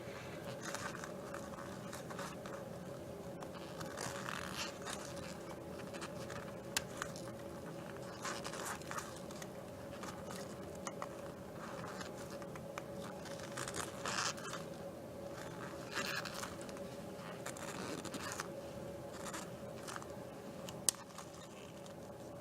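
Small wire cutters snipping and peeling the zinc casing at the positive end of a zinc-carbon battery: irregular scraping and crunching of metal, with a few sharp snips.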